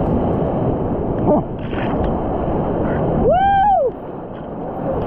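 Whitewater rapids rushing and churning close around the microphone at water level. About three and a half seconds in, a person gives a short yell that rises and falls in pitch, and the water noise then drops a little.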